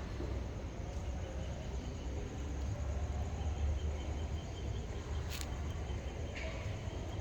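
Outdoor background noise: a steady low rumble with a faint, fast, high chirping trill in the middle and two short clicks near the end.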